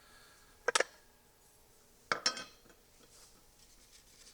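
Metal parts of a belt grinder clinking together as they are handled: two short bursts of clinks, about a second and a half apart.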